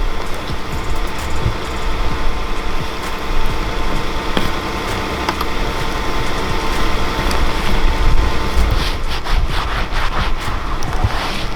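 A vehicle engine idling steadily, with a run of quick scraping strokes near the end.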